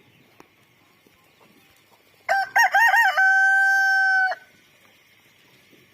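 A rooster crowing once for about two seconds: a few quick broken notes, then one long held note that cuts off.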